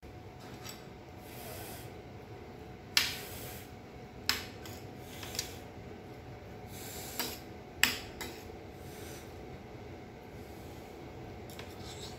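A handful of sharp clinks of metal cutlery against a ceramic plate between about three and eight seconds in, over a steady faint hum.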